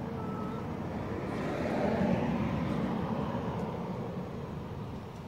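A motor vehicle passing by: a rumble that swells to its loudest about two seconds in and then fades away.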